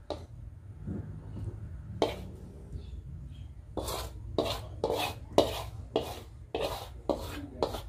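Wooden spatula scraping thick rendang gravy and chicken out of a wok into a bowl. A few single strokes come first, then from about halfway a quick run of scrapes, about three a second.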